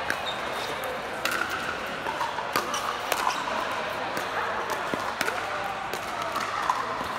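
Pickleball rally: sharp pops of paddles striking the plastic ball, a string of hits roughly a second apart, over a background of voices.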